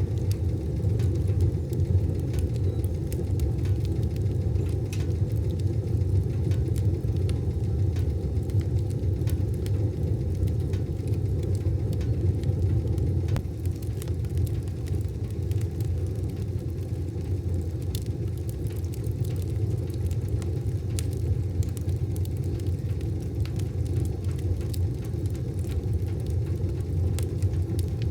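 Wood fire burning in a wood stove: a steady low rumble with scattered sharp crackles and pops.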